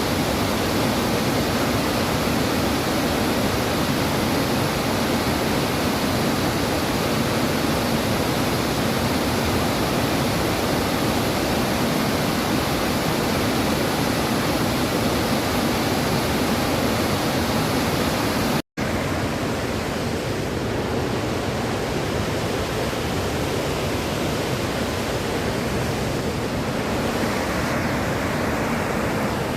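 Bow Falls: a loud, steady rush of water pouring over the falls. There is a split-second break about two-thirds of the way through, after which the rush carries on with a little less hiss.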